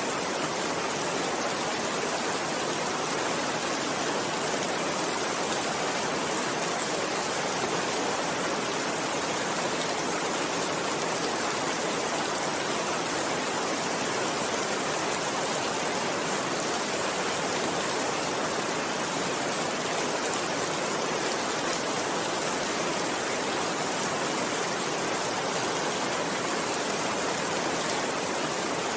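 Steady rainfall: a dense, even hiss with no separate drops or pauses standing out.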